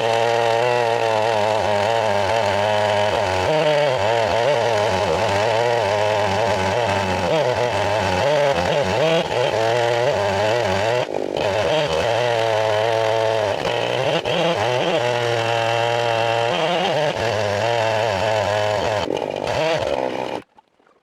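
Large Husqvarna two-stroke chainsaw running under load in a chainsaw mill, ripping through redgum hardwood with a long bar and ripping chain. Its pitch wavers slightly as the cut goes, and the sound stops abruptly near the end.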